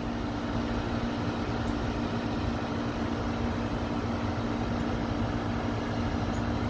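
Steady low machine hum, like a motor or engine running, with wind rumbling on the microphone.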